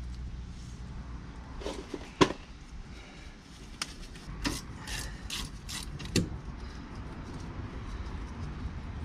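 Separate sharp metallic clicks and knocks of hand tools being handled at a van's rear disc brake, the loudest about two seconds in and a cluster of them between about four and six seconds.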